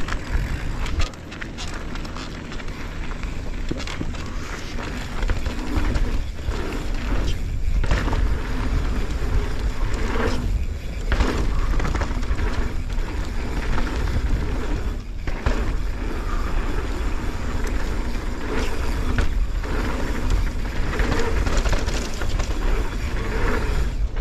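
Mountain bike riding down a dirt forest trail: steady wind rush on the camera's microphone, strongest in the low end, with tyre noise and irregular knocks and rattles as the bike goes over bumps.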